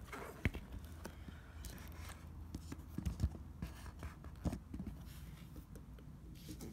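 Hands working at the plastic wrapping on a sealed cardboard box: a few scattered light taps with faint crinkling of the wrap between them.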